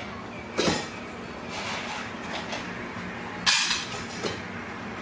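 Metal dog food bowls clinking and knocking as they are handled at a counter: a few sharp clatters, the loudest about three and a half seconds in.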